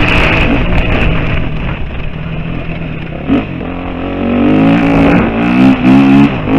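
KTM 350 EXC-F's single-cylinder four-stroke engine running under way on a dirt track. It eases off about two seconds in, then opens up again from about four seconds in, revving up in several rising pulls with short breaks between.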